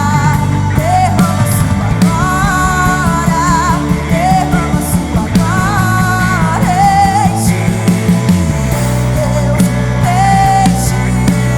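Live worship band playing with a female lead vocalist singing long, wavering phrases over a steady beat.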